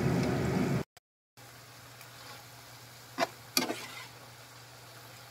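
Hot oil sizzling loudly as battered tempe slices deep-fry, cut off under a second in. After that comes a faint steady hum with two sharp knocks about half a second apart, near the middle.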